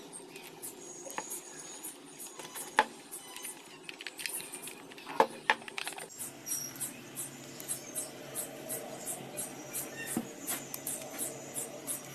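Small plastic parts and tools being handled on a wooden table: a few sharp clicks and taps, loudest about halfway. From about halfway a steady faint hum sets in under a run of light ticks, about three a second.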